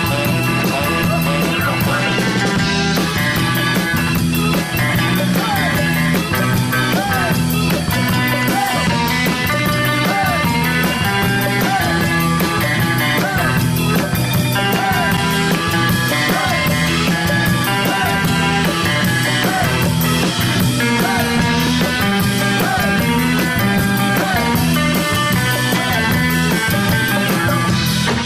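Upbeat rock music with a steady beat.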